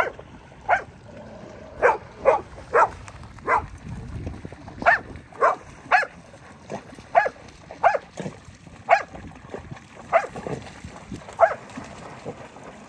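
A dog barking, short single barks repeated about once a second, a dozen or so.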